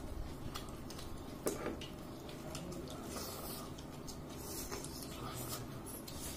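Eating sounds at a meal: quiet chewing and scattered small clicks and clinks of food and hands against a plate, with one sharper click about a second and a half in.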